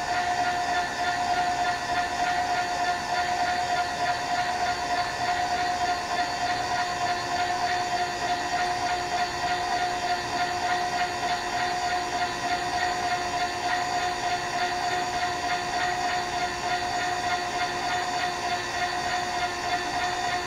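Steady mechanical whine over a hiss from a running machine, holding one pitch without a break.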